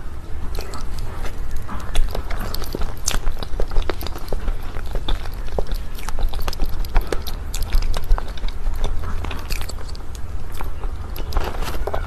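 Close-miked biting and chewing of a chocolate-shelled mousse cake: soft mouth sounds broken by many sharp little crackles of the chocolate coating, over a steady low rumble.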